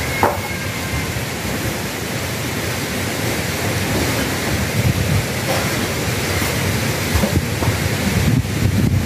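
A steady rushing noise fills the background, with a short click just after the start. Over it come light rustling and knocking from a cardboard shoe box, tissue paper and a sneaker being handled, getting busier about halfway through.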